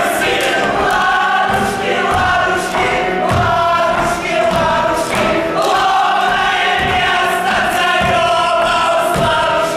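A vocal ensemble singing in chorus, several voices holding long notes together.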